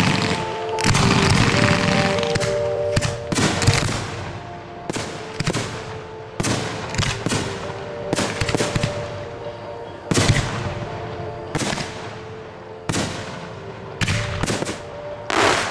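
Aerial firework shells bursting overhead: a dense barrage of bangs for the first few seconds, then single reports about a second apart, each trailing off. Show music runs underneath.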